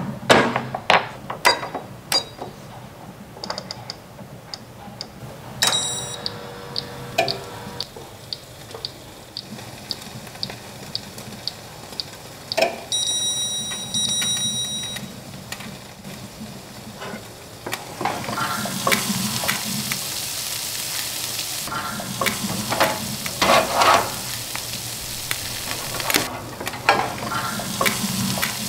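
BALMUDA toaster at work: sharp clicks and knocks as the door is shut and the timer dial turned, then the timer ticking about twice a second for several seconds, and a short ringing tone. From about two-thirds of the way through, a steady sizzle of cheese toast baking, with a few knocks of the metal tray near the end.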